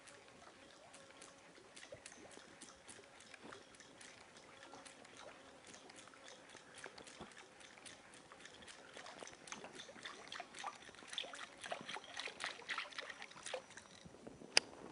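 Faint splashes and quick ticks from a topwater lure being twitched across the water surface. They come thicker and louder over the last few seconds, with one sharp click near the end.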